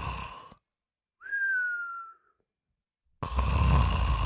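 Cartoon snoring sound effect: a raspy snore fades out, then a single whistled breath that slides gently down in pitch, then another raspy snore begins near the end.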